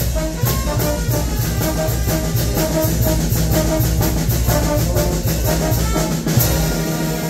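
Live Mexican banda de viento brass band playing a dance tune, with sousaphone, trumpets and drums over a steady beat. About six seconds in the beat stops on a final hit and the horns hold a chord.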